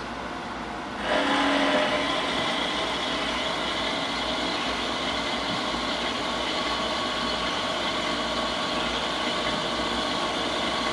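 Scotchman SU-280 G horizontal metal-cutting band saw running. About a second in, its blade bites into a 1¼-inch solid hex bar, and it then cuts through the bar steadily under its metered down-feed.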